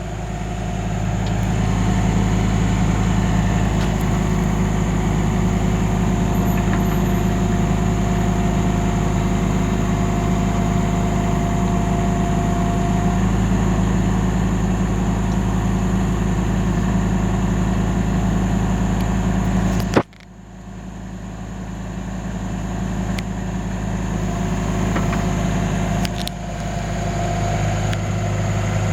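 Engine running steadily with a low hum. About two-thirds of the way through, it drops away sharply with a click, then builds back up over a few seconds.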